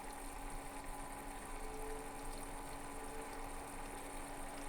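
Desktop PC's cooling fans running steadily under a CPU benchmark load: a faint, even hiss with a steady low hum.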